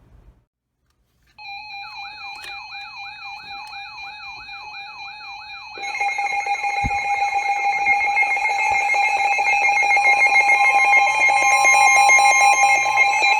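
Emergency alert tones heralding a Severe Thunderstorm Warning broadcast. After a short silence, an alarm starts about a second and a half in: steady tones with a fast repeating warbling sweep. About six seconds in, a louder, steady multi-tone alert signal takes over and carries on.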